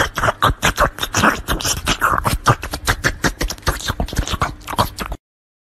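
A cat licking an ice pop: quick wet tongue clicks and smacks, several a second, stopping abruptly near the end.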